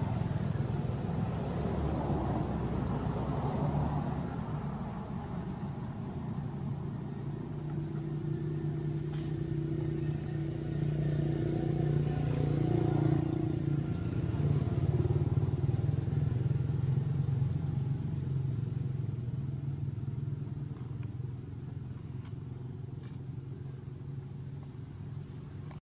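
Low engine drone, like a motor vehicle on a road, growing louder about halfway through and fading toward the end, with a steady high-pitched whine above it.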